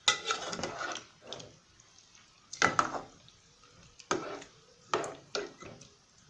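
A spoon stirring thick groundnut paste, palm oil and pepper through pieces of chicken and fish in a pot: wet stirring sounds with knocks of the spoon, in irregular strokes, the first lasting about a second.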